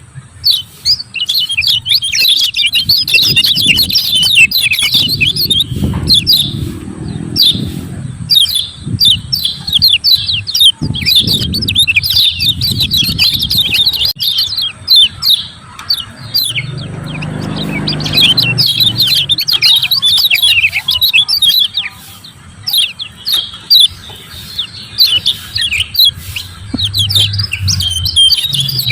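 Lemon-bellied white-eye (kecial kuning) giving its rapid 'ciak ciak' call: a dense, unbroken run of quick, high, down-sweeping chirps. A low rumble comes and goes underneath.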